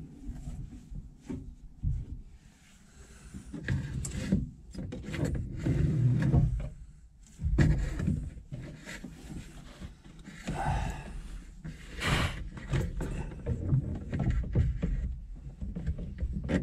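Hands working an accelerator cable in a stripped truck-cab footwell: irregular rubbing and scraping of the cable and metal, with scattered knocks and clatters against the floor pan.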